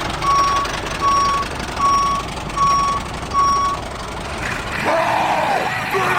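Vehicle reversing alarm beeping five times, evenly spaced under a second apart, over a steady low hum. The beeping stops and a shout begins near the end.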